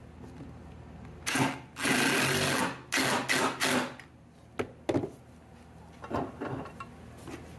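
DeWalt 20V cordless impact driver running a socket onto the bench vise's mounting nuts, tightening them down. It runs in a few short bursts and one longer run about two seconds in, with quick taps near the end as each nut snugs up.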